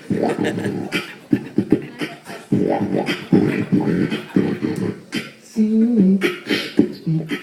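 Beatboxing: a rhythmic run of vocal bass buzzes and mouth clicks and snares, with a hummed, wavering bass-like line starting about five and a half seconds in.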